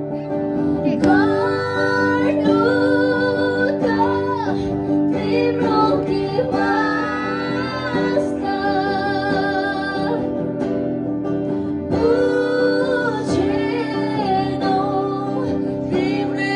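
Live acoustic guitar accompanying a voice singing a Nepali song with a held melody line.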